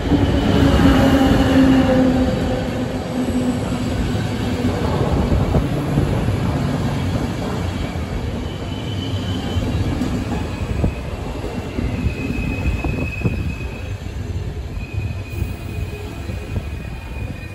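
A České dráhy passenger train rolling past close by: a heavy, steady rumble of steel wheels on the rails. A low hum in the first few seconds fades, and high, thin wheel squeals come and go through the rest of the pass.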